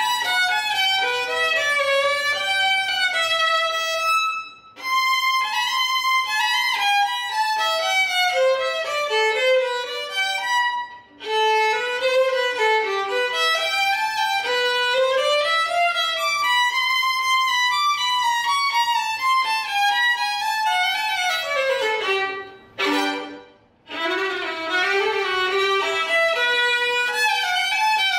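Solo violin played with a bow during practice, a melody moving note to note in phrases, broken by short pauses about four, eleven and twenty-three seconds in.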